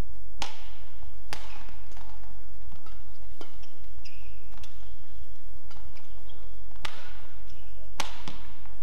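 Badminton rally: rackets striking the shuttlecock with sharp cracks at an uneven pace, the strongest about a second and a half from the end, with short squeaks of shoes on the court mat between the hits, over a steady low hum.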